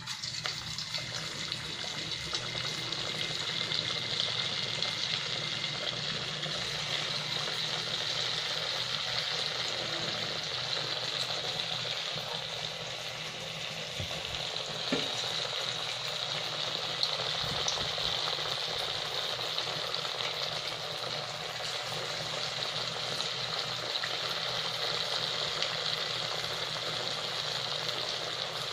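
Semolina-and-raw-potato vadas deep-frying in hot oil in a kadhai on high heat: a steady sizzle.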